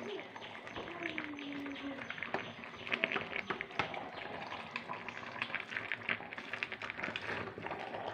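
Tapioca and meat biryani gravy boiling in a pot, with many small irregular pops and clicks of bubbling.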